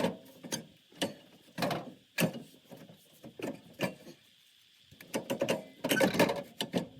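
Irregular metallic knocks, clinks and scrapes of hand tools and loose metal parts during exhaust removal on a UTV, with a brief lull about four seconds in.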